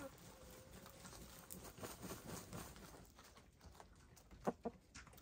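Hens dust bathing: faint, irregular scratching and pattering of dirt as they scuff and flick dust, with two sharper taps about four and a half seconds in.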